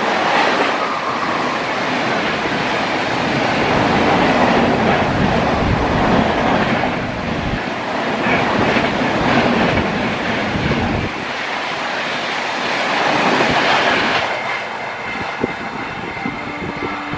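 Express passenger train's coaches rushing past at about 130 km/h, wheels clattering over the rail joints. The noise drops off about three seconds before the end as the last coach moves away.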